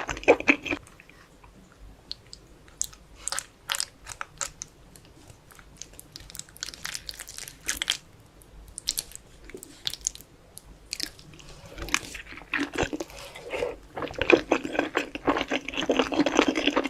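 Close-up chewing and biting of Korean-style instant noodles: scattered wet mouth smacks and clicks, growing into a denser, louder run of eating sounds in the last few seconds.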